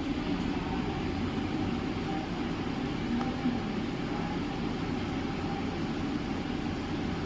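CPU cooling fan running at high speed: a steady whir with a faint hum.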